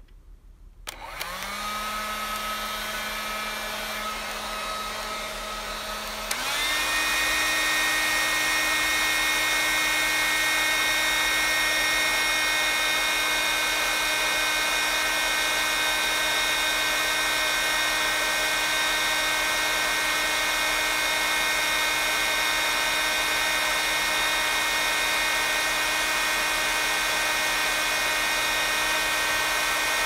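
Panasonic hand-held hair dryer switched on about a second in, its motor spinning up to a steady run with a fan whine, then stepping up to a faster, louder speed about six seconds in and blowing steadily from then on.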